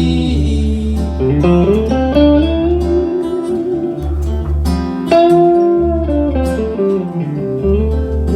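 Live instrumental break in a song: a guitar plays a lead line with sliding, bending notes over low bass notes.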